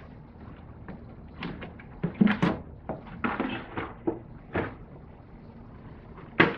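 Plastic engine air box cover on a 2015 Chevy Impala being worked loose and lifted off by hand: a series of knocks and clunks with a brief scraping in the middle, and a sharp knock near the end.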